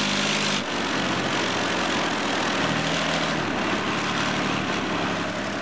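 Heavy military vehicle engine running as the vehicle drives off-road, heard from on board, with a dense hiss over the engine note. The engine note drops a little about half a second in.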